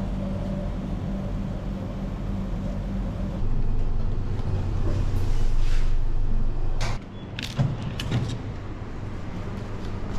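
Lift car running with a steady low hum. The hum grows louder a few seconds in, then drops away sharply about seven seconds in, and a few short clicks follow.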